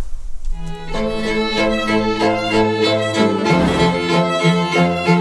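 Soundtrack music: bowed strings come in about a second in, joined by a pulsing low beat from about halfway through.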